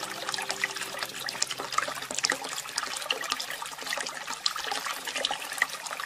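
Flowing water, steadily splashing and trickling, with many small splashes.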